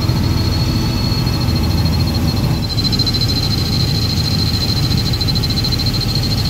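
Helicopter cabin noise in flight: a steady low engine and rotor drone with a thin high turbine whine that flutters rapidly. The drone shifts slightly about two and a half seconds in.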